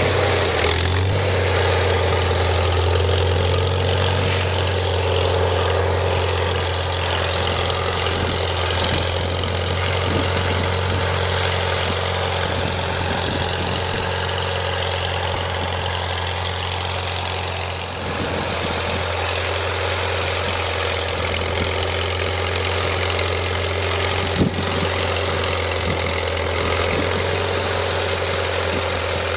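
Farmall Super M tractor's four-cylinder engine running steadily at a constant speed while the tractor is driven.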